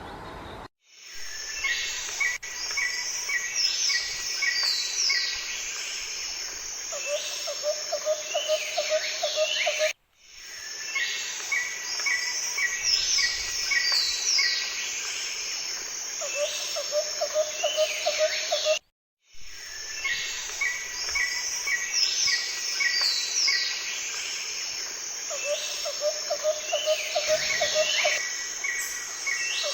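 Several songbirds singing, with chirp series and whistled sweeps and a low, rapid trill in the background. The same nine-second stretch of birdsong repeats three times, broken by brief silent dropouts: a looped recording.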